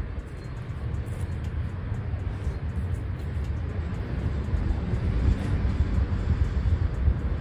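Outdoor background rumble: a loud, unsteady low rumble that goes on throughout, with a fainter hiss above it.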